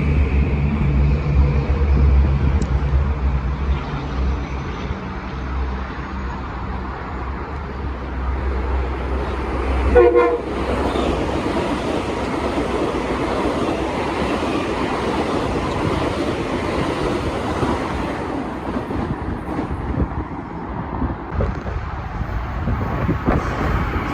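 A train running past the microphone with a steady low hum and rushing wheel noise, and one short horn toot about ten seconds in.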